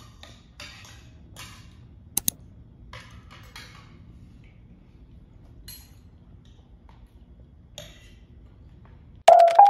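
Spoons and forks scraping and clinking against dinner plates as two people eat, with two sharp ringing clinks about two seconds in, over a low steady hum. Near the end a louder chiming tune starts.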